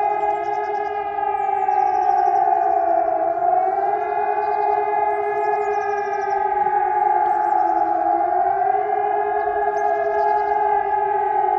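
Several Helin electronic civil-defence sirens (HES 1200 and HES 600) sounding together, their overlapping tones slowly falling and rising in pitch about every five seconds. This rising and falling howl is the German public warning signal.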